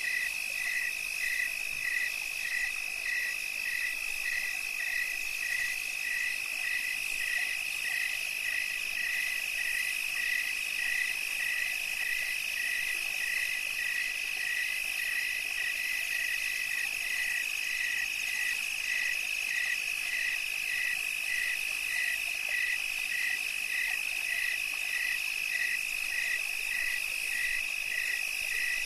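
Night chorus of insects: a steady high-pitched trill, with another caller chirping evenly about twice a second.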